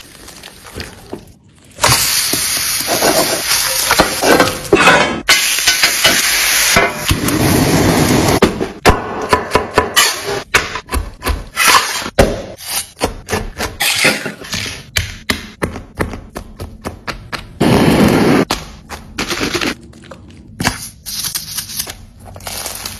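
Food-preparation sounds on a wooden board and in a steel mixing bowl. A steady stretch of noise lasts several seconds, followed by a long run of sharp knocks and cracks with another short burst of noise.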